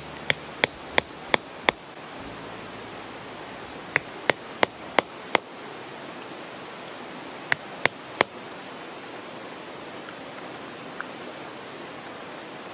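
Hatchet striking a black walnut kuksa blank in three runs of sharp, ringing knocks (five, five, then three, about three a second), cutting the cup's finger hole, over a steady hiss.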